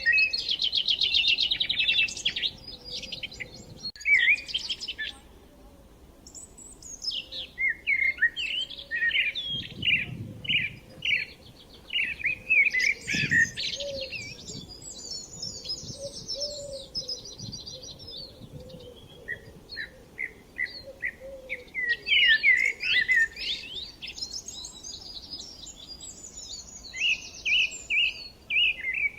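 Songbirds singing in a dense chorus of varied, fast trills and rapidly repeated notes, with short lulls between phrases.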